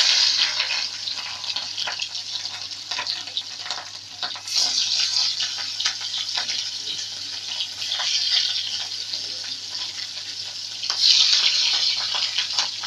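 Rohu fish pieces coated in turmeric and salt sizzling in hot oil in a wok, the sizzle flaring up sharply three times as further pieces are slid into the oil.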